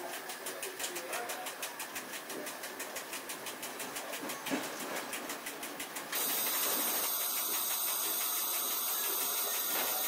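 Passenger train running, heard from inside its driving cab: running noise with a rapid, even ticking. About six seconds in it switches abruptly to a louder steady hiss with high, steady whines.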